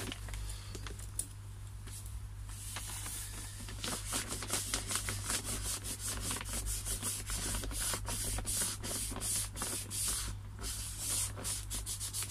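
Plastic pond liner crinkling and rustling as a hand rubs and handles it, in quick, irregular strokes that grow busier from about four seconds in.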